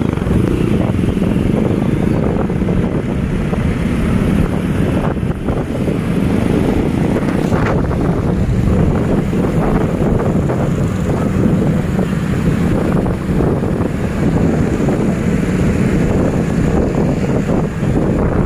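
Steady, loud wind noise on the microphone of a moving motorbike, over the running engines of the motor scooters around it.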